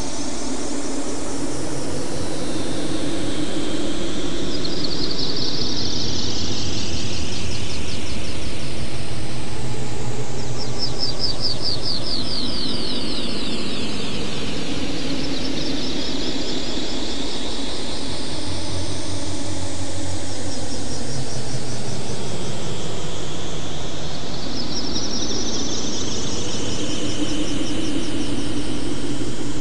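Synthesized electronic tones made in SuperCollider from simple sine and square waves. Layered tones slowly sweep up and down over several seconds, with a fluttering high band above a lower hum.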